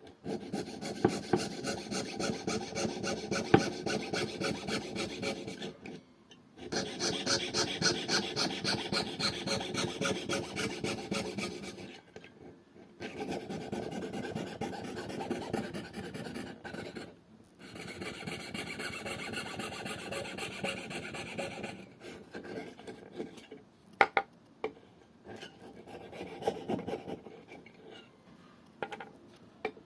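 A hand tool rasping back and forth on wood in quick, even strokes, in four runs of about five seconds with short pauses between them. After that come scattered light knocks, with one sharp click about 24 seconds in.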